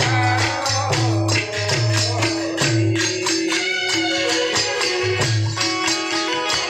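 Folk music without singing: jingling hand percussion keeps a fast, even rhythm over a deep drum beat about once a second, with a long held melody note above.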